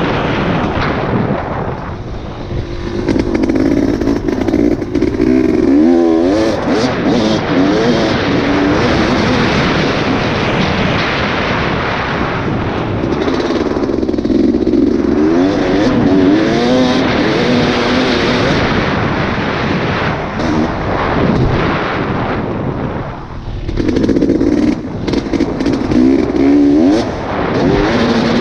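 Heavy wind buffeting the microphone over an off-road vehicle's engine, which revs up and down in three stretches of riding.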